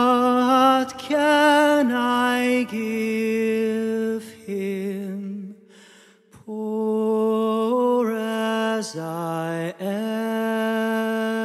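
Male voice singing a slow carol melody in long held notes with vibrato, pausing briefly about six seconds in.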